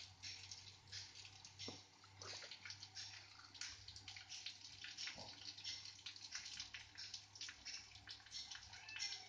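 Faint, irregular trickling and dripping of liquid feed in a hand-held tube-feeding bottle, with feed poured into the bottle from a steel cup near the end.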